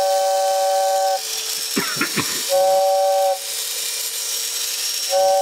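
Fan-blown toy train whistle inside a 1960s Sonic Robot (Train Robot), sounding two notes together in separate toots as its cam-driven flap opens and shuts the air path: a toot of about a second at the start, a shorter one near the middle, and another starting just before the end.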